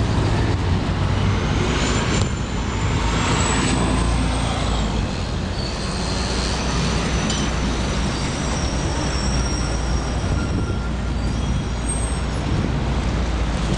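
City street traffic: a bus, box trucks and cars running past, a steady low engine rumble under road noise. A thin high whine sounds for a few seconds near the start.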